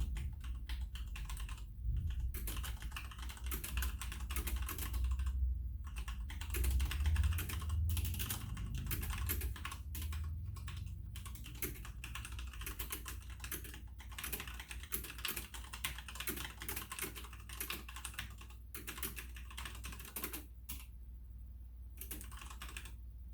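Fast, continuous typing on a Logitech G610 mechanical keyboard with Cherry MX Red switches, with a few brief pauses. The typing stops near the end.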